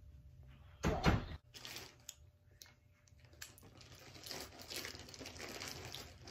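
A child chewing and smacking food close to the microphone: faint wet mouth clicks, with one brief loud noise about a second in.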